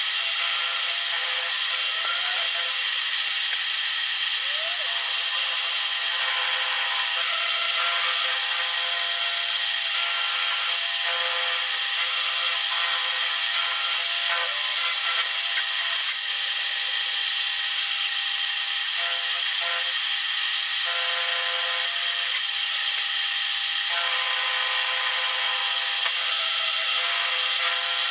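Small high-speed power tool grinding a piece of steel angle iron, a steady high whine whose pitch shifts a few times as it works, with one sharp click about sixteen seconds in.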